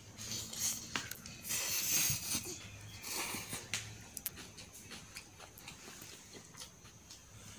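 A person slurping instant noodles and chewing with the mouth open, with two longer hissing slurps in the first half and small clicks from a fork against the plate.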